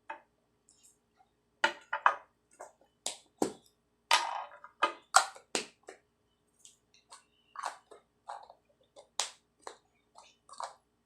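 Glue-and-shaving-foam slime being mixed and worked with activator, making irregular wet squelches and sticky snapping pops, about fifteen, in uneven bursts.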